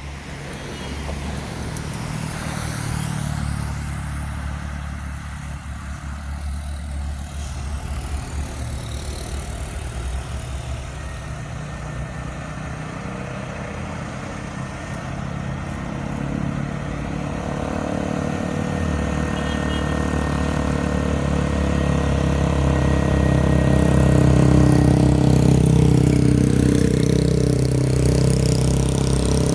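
Diesel engines of two heavy CPO tanker trucks pulling up a steep incline, a steady low engine note that grows louder as they draw near, loudest near the end.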